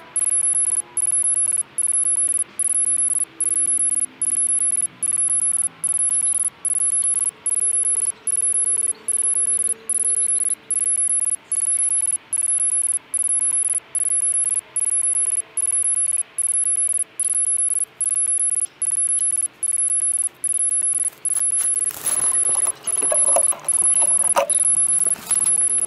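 High-pitched lost-model buzzer on a crashed Vortex 230 Mojo quadcopter beeping steadily, long beeps with short breaks a little more than once a second, sounding so that the downed quad can be found. Near the end, rustling and knocking of brush and handling as the quad is picked up.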